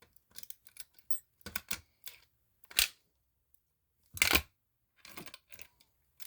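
Sharp clicks and clacks of a Simplex fire alarm pull station being reset with its key: the key working in the lock and the station being opened and closed. Scattered light clicks, with two louder clacks about three seconds and about four and a half seconds in.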